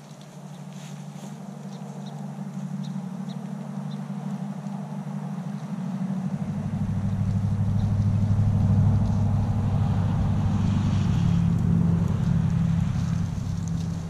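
A motor vehicle's engine running, its low hum growing steadily louder, with a deeper tone coming in about six seconds in and then holding.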